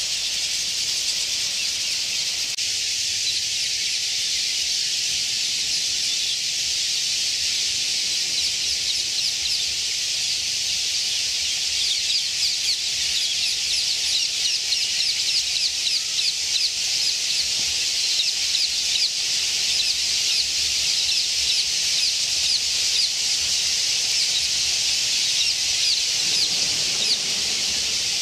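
A large flock of small birds chattering: a dense, unbroken mass of rapid high chirps, growing busier and more pulsing from about ten seconds in.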